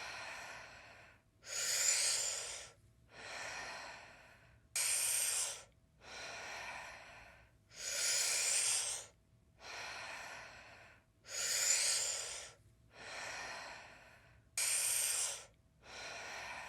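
Deep, rhythmic breathing in Wim Hof-style breathwork, with no holds. About five full breaths, each a loud, sharp-edged breath followed by a softer, trailing one, about one breath cycle every three seconds.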